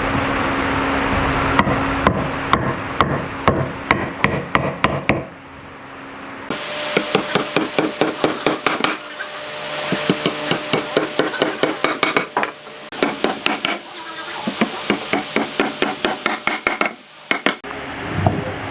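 Runs of quick hammer blows on wood, about three to four strikes a second, broken by short pauses. A steady low hum sits under the first few seconds.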